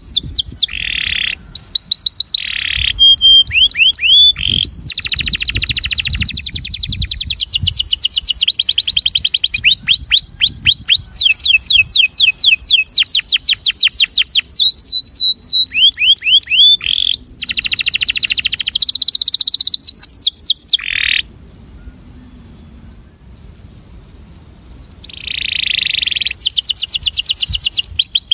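Male canary singing: fast trills of rapidly repeated sweeping notes and buzzing rolls. The singing drops away for a few seconds about three-quarters of the way through, then resumes.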